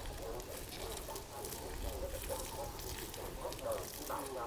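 Domestic fowl calling over and over in short, wavering calls, with scattered light clicks.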